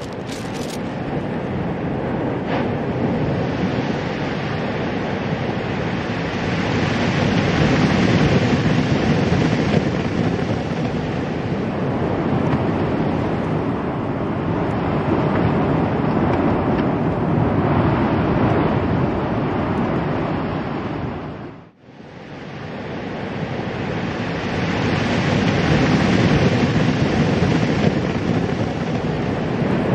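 Loud, steady rushing noise, like wind or surf, that swells and eases over several seconds and cuts out for an instant about two-thirds of the way through.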